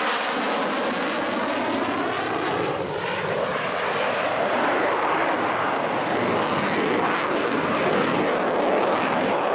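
Saab JAS-39C Gripen's Volvo RM12 turbofan jet engine during a fast low flyby. It is loud throughout, with a sweeping, phasing sound that shifts in pitch as the jet passes during the first few seconds.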